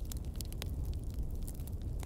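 Log fire burning: a steady low rumble of flames with a handful of sharp crackles and pops from the burning wood.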